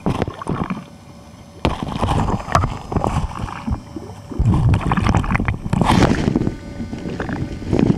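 Water sloshing and splashing around a camera in a waterproof housing at the surface, with irregular knocks and rumble, heavier in the second half.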